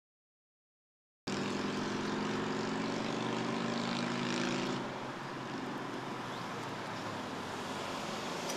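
After about a second of silence, a steady engine drone cuts in abruptly. A little past halfway the drone gives way to a broad, steady rush of outdoor noise.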